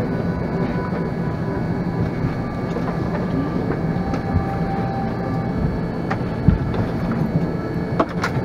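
Steady drone of an airliner cabin at the gate, its air-conditioning and onboard systems humming, with a few short knocks as carry-on bags are handled and stowed in the overhead bins.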